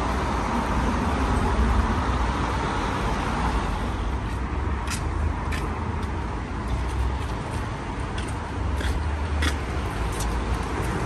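Road traffic on a wet street: cars passing with a steady hiss, louder in the first half, over a constant low rumble. A few short clicks come in the second half.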